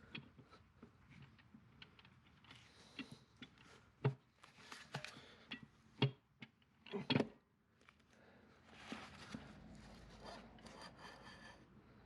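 Hand work on parts: several sharp knocks, the loudest about four, six and seven seconds in, then a steady scraping, rubbing noise for the last few seconds.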